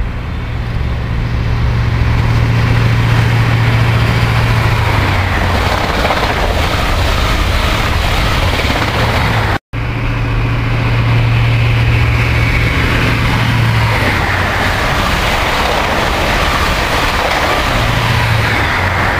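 InterCity 125 (HST) diesel train approaching and running through the station at speed: a steady low engine drone under a loud rush of wheel and air noise. The sound breaks off for an instant about halfway through, then carries on.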